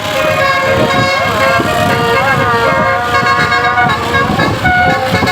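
Tour bus's basuri telolet horn, a multi-note musical air horn, playing a melody in held notes that step from pitch to pitch with small bends, over a low rumble.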